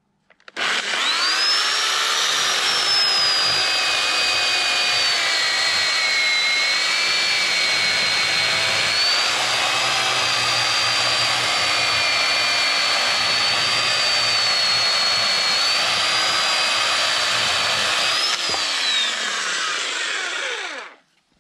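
Corded electric chainsaw spinning up and sawing through a fresh-cut oak log, its motor giving a steady whine that sags a little in pitch under load. Near the end the pitch rises briefly as the cut finishes, then the motor winds down to a stop.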